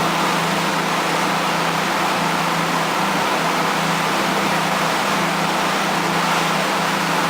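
Motorboat running steadily under way: an even engine drone with a wash of wind and water noise, unchanging throughout.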